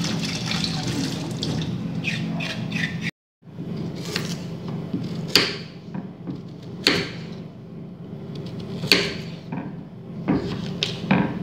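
Tap water running into a stainless steel sink as a carrot is rinsed under it by hand. It breaks off sharply about three seconds in, and a knife then slices the carrot on a wooden cutting board: a sharp knock of the blade on the board every second or two, four or five times.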